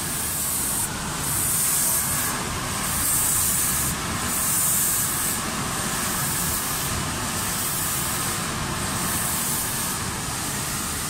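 Automatic spray-painting machine's spray gun hissing in bursts that cut in and out about every one and a half seconds as the gun carriage sweeps back and forth over the cabinet doors, over a steady machine noise.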